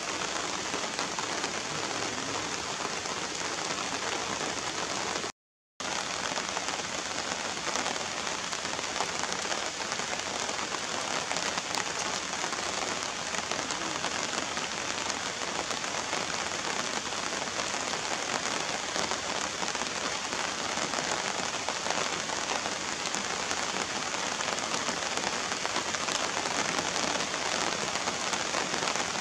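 Steady rain falling on flooded ground and puddles, an even hiss throughout, cut off to silence for about half a second around five seconds in.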